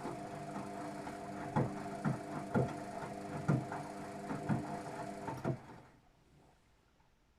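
Luxor WM 1042 washing machine turning its drum in the softener rinse: a steady motor hum with a handful of clunks from the tumbling drum. Near the end the motor stops and the sound dies away.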